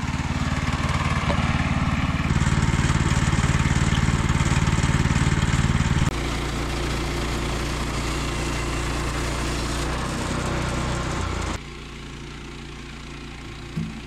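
Portable bandsaw sawmill running, its small gas engine droning steadily as the band blade cuts through a log. The sound changes abruptly about six seconds in and drops to a quieter run near the end.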